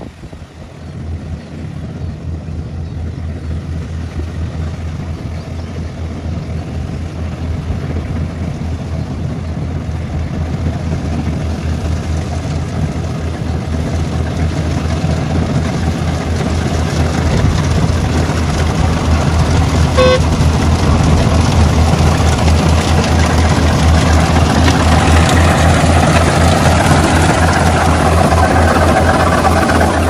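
Rice combine harvester running steadily while cutting a paddy, its engine growing louder as the machine draws nearer. A single short tone sounds about two-thirds of the way in.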